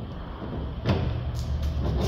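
Metal clanking from hands working tools or parts in a car's front suspension: one sharp knock about a second in, then a few lighter clinks, over a steady low hum.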